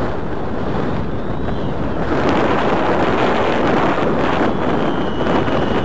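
Wind buffeting the microphone over a steady wash of sea surf, a little louder from about two seconds in.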